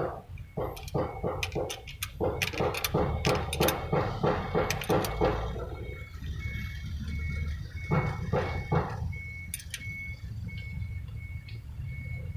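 Mitsubishi Canter truck's diesel engine being cranked by the starter, chugging at about four beats a second for some five seconds, then a second short burst of cranking. A short high beep repeats about once a second, like a dashboard warning buzzer. The engine is being restarted after the oil change.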